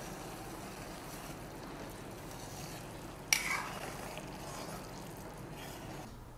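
Mango pieces in sugar syrup bubbling at a boil in a stainless steel pot while being stirred with a metal spoon, as the syrup cooks down toward one-thread consistency. About three seconds in, the spoon knocks once against the pot.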